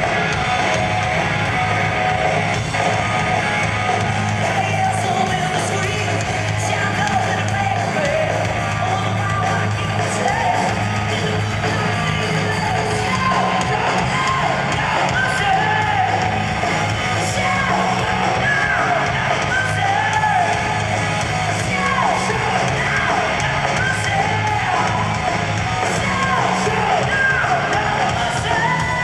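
Hard rock band playing live: distorted electric guitars, bass and drums, with a male lead vocal singing over them, heard from among the audience. The singing stands out more clearly from about ten seconds in.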